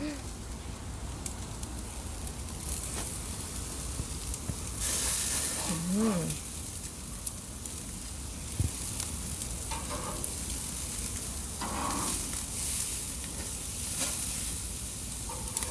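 Steak sizzling as it grills, a steady hiss that swells louder about five seconds in and again near twelve seconds.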